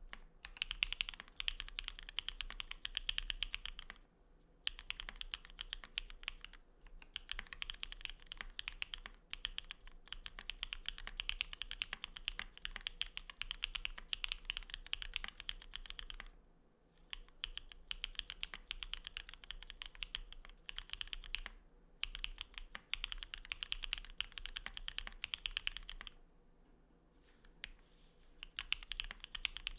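Typing on a custom Geon Works F1-88 mechanical keyboard: aluminum plate, no foam, lubed Cherry Cream linear switches (MX black housings with NovelKeys Cream stems) and XMI ascii keycaps. Rapid keystrokes come in long runs, broken by a few short pauses, the longest about two seconds late on.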